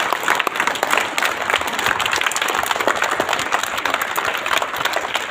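Dense, irregular patter of many quick claps and slaps from a large group of students doing a drill exercise together, keeping up steadily with no pause.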